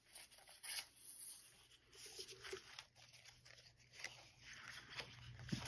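Faint, scattered rustling and crinkling of printed acetate and paper sheets being handled and shuffled by hand.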